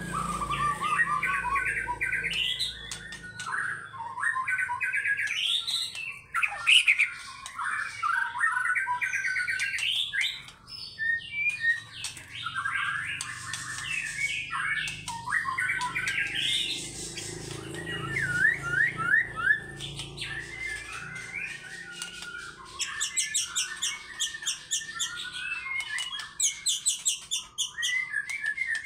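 White-rumped shama (murai batu) singing a loud, continuous, varied song of whistled and chattering phrases. About three-quarters of the way in there is a run of fast repeated high notes.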